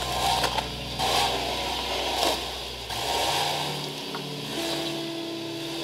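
Renault Duster's engine running at low revs as the car crawls over rocks on a washed-out dirt track, with tyres scrabbling and stones scraping in the first few seconds.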